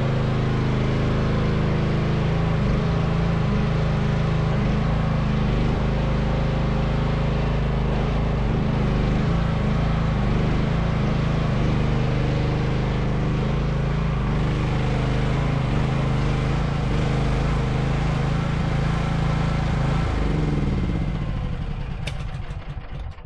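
Chinese mini excavator's engine running steadily. Near the end its pitch falls and the sound fades away, with a sharp click just before it dies down.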